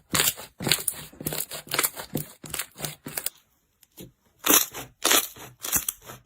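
Slime being pressed and squeezed by hand, giving a quick, uneven run of crunchy crackles and pops, with a short pause a little past the halfway point.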